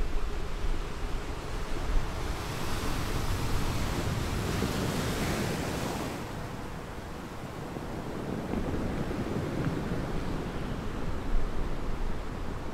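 Sea waves washing on the shore with wind, as steady hissing noise. About two seconds in a louder hissing surge builds, and it cuts off suddenly about halfway through.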